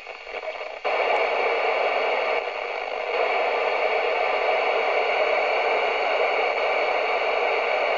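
Steady loud hiss from a CB radio receiver in FM mode, tuned to 27.765 MHz with no signal coming in and the squelch open between transmissions. The hiss dips briefly in the first second and cuts off abruptly at the end.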